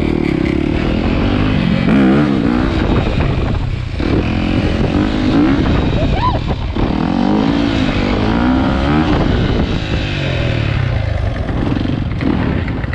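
Dirt bike engine being ridden through the gears, its pitch rising and falling with throttle and shifts, over a low rush of wind.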